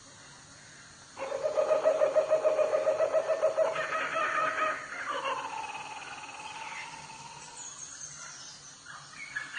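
A bird's long crow-like call starting about a second in, loud and quavering for several seconds, then sliding down in pitch and fading. A faint high falling whistle follows near the end.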